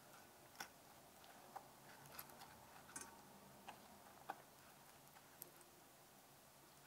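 Near silence with faint, irregular small clicks and ticks as a choux pastry ring is dipped and turned in caramel glaze in a stainless steel saucepan.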